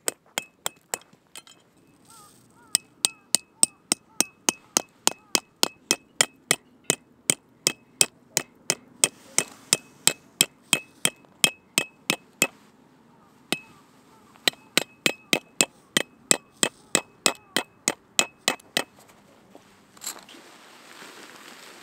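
A metal peg hammer drives a metal tent peg into gravel with quick, ringing clinks, about three strikes a second, in long runs broken by short pauses. Near the end there is a single knock, then rustling.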